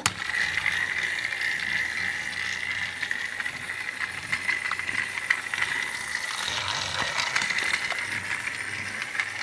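Battery-powered Trackmaster Thomas toy engine running along plastic track: a steady high motor and gear whir with a fine clatter of small clicks.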